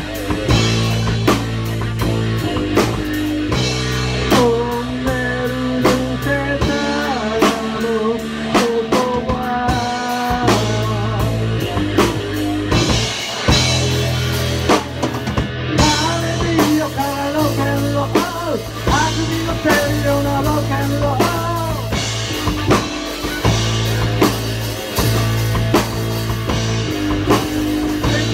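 Live rock band playing a song: electric guitar, electric bass and drum kit.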